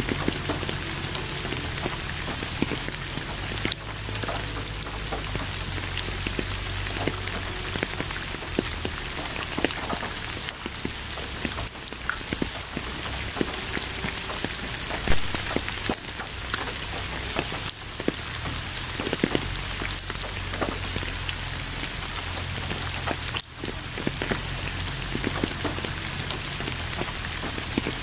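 Steady rain falling on a surface, a continuous hiss dotted with many individual drops and drips, with one louder hit about halfway through.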